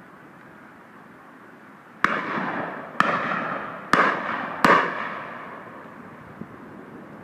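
Four shotgun shots at a driven game shoot, about a second apart and coming a little quicker towards the end, each followed by a rolling echo that dies away.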